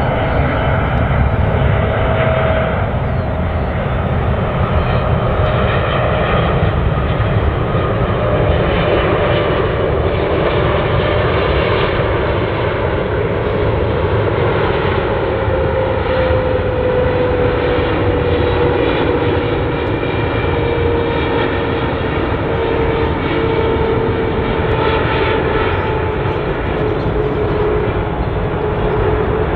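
A United Boeing 777-300ER's twin GE90 turbofan engines on final approach to land: a steady jet rumble with an engine whine that slowly falls in pitch.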